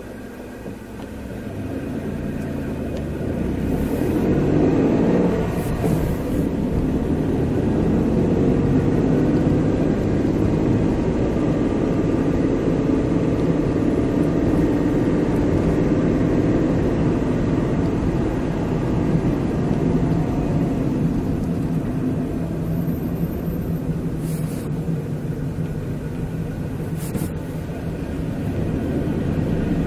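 Car engine and road noise inside the cabin as the car pulls away from a standstill, growing louder over the first few seconds, then running steadily on the move.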